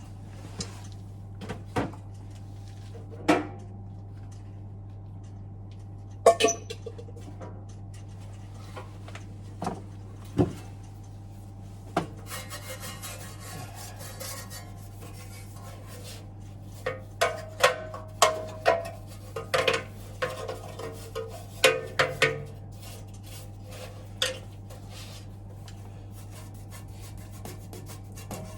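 Sheet-metal flue hood of a gas boiler being cleaned by hand: scattered metallic clinks and knocks, a few seconds of scrubbing noise about twelve seconds in, and a run of clattering clinks a few seconds later, over a steady low hum.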